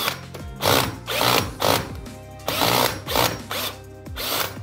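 Makita cordless drill driver run in repeated short bursts, about eight trigger pulls in a row, with its bit working into a plastered wall.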